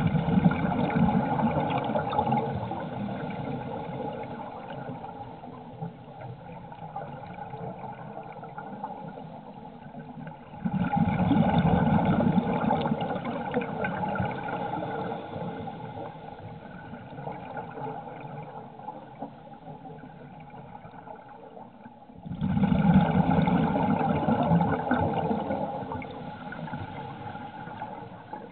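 Scuba regulator exhaust bubbles from a diver breathing out underwater: three slow exhalations, each starting with a sudden rush of bubbling that fades over several seconds.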